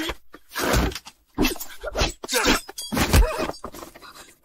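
A scuffle: strained grunts and cries mixed with thuds of blows, in several bursts about a second apart.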